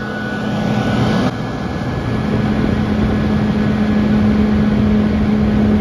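Yoder YS640s pellet smoker's combustion fan running during its power-off cool-down cycle: a steady motor hum with air rushing through the intake vent.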